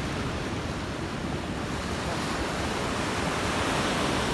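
Sea waves washing in on a beach, an even rush of surf that swells a little near the end, with some wind on the microphone.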